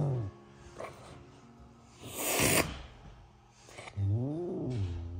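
A serval feeding on raw chicken gives one short hiss about two seconds in, then a low growl that rises and falls near the end, typical of a wild cat guarding its food.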